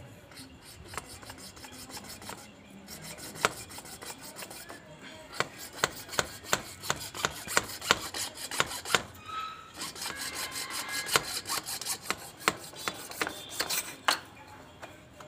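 Repeated rasping, scraping strokes on a PVC water pipe, coming in quick runs of about two a second with a short break midway. The pipe is being scraped down, which the plumber says he does to take off the paint so the joint will not leak.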